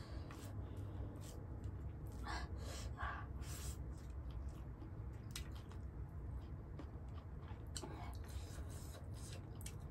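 Fingers mixing rice with pork gravy on a plate, making scattered short wet clicks and squishes, then a handful is eaten and chewed near the end. A steady low hum runs underneath.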